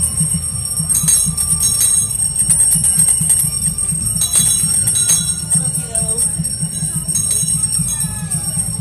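Many small bells jingling continuously, with occasional sharper strikes, over music with a low, rapid pulsing beat.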